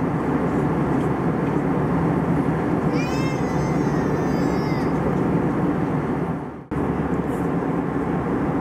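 Steady cabin noise of an Airbus A320 in flight. About three seconds in, a high-pitched squeal rises and then holds for about two seconds. Just after six seconds in, the sound dips away and snaps back abruptly.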